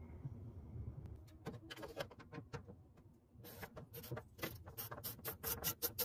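Sharp metallic clicks of a ratchet with a 10 mm socket on the bolt atop a car door lock: a few scattered clicks, then after a brief pause a quicker run of about five a second.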